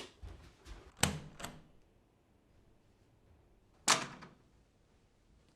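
A few short, sharp knocks: two about a second in, half a second apart, then a single stronger knock about four seconds in.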